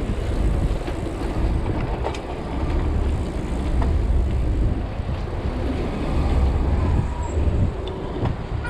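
Steady low rumble of wind on the microphone of a bicycle riding through traffic, mixed with the noise of cars running alongside.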